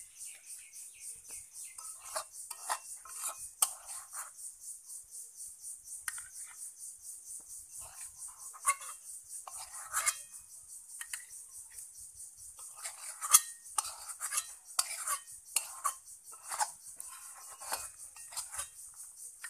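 Metal spatula scraping and clinking against a metal karahi pan in irregular strokes, with a few sharper clanks, as the cooked egg rabri is scraped out into a bowl. A steady high-pitched chirping pulse, about three a second, runs underneath.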